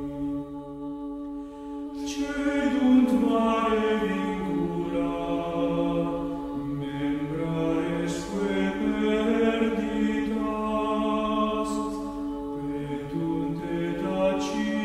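A congregation singing a hymn, voices carrying a melody over a steady held note; the singing is soft for the first two seconds, then a new phrase starts and swells.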